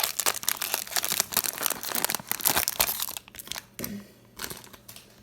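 Hockey card pack wrapper crinkling as it is torn open by hand, a dense crackle for about three seconds that thins out to a few scattered crinkles.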